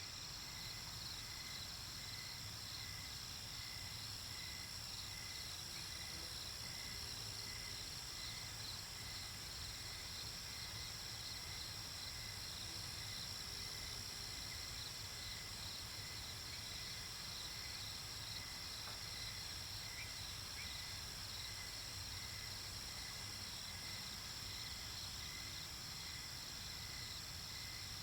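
A night-time chorus of crickets: a steady high trill with evenly repeated chirps running under it.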